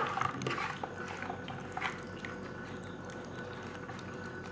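Hand squishing thick yogurt marinade into chicken pieces in a metal pot: soft wet squelches and light taps, mostly in the first two seconds, then quieter.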